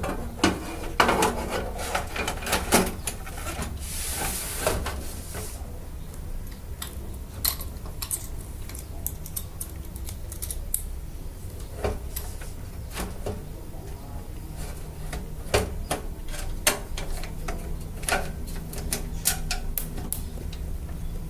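Scattered metallic clicks, clinks and knocks as an ATX power supply unit is fitted into a steel PC case, with a brief scrape about four seconds in, over a steady low hum.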